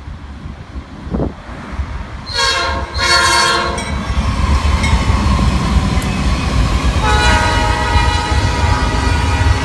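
Norfolk Southern freight train passing close by: the lead diesel locomotive sounds two short horn blasts a little over two seconds in, then the locomotives and double-stack container cars run past with heavy wheel noise on the rails, and a steady high wheel squeal sets in about seven seconds in.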